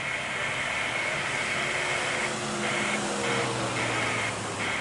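Jet engines of a Boeing 787 airliner on final approach: a steady rushing hum with a high whine over it, the whine breaking up into short pieces in the second half.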